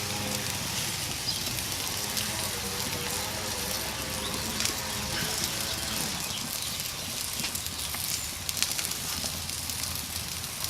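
Apple slices sizzling on a gas grill: a steady hiss full of small pops and crackles as moisture cooks out of them. A wavering hum runs under it for the first half and then fades out.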